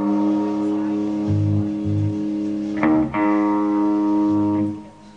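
Live rock band: a sustained chord struck and left ringing, then struck again about three seconds in, with short bass guitar notes underneath. It dies away near the end.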